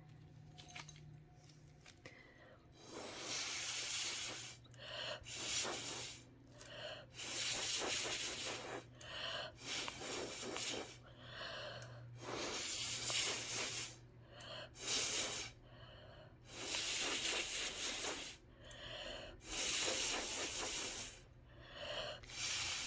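Breath blown hard through a metal straw in a long series of short puffs with brief pauses between them, pushing wet epoxy resin into lacy wave patterns. A faint steady low hum runs underneath.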